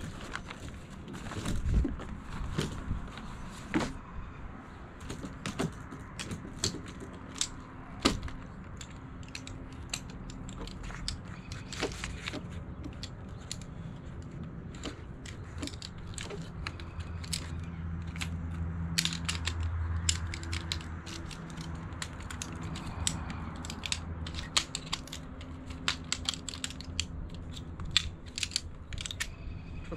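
Ultralight folding camping chair being taken down: the fabric seat rustling as it comes off the frame, then the sectioned metal poles clicking and clacking many times as they are pulled apart and folded into a bundle.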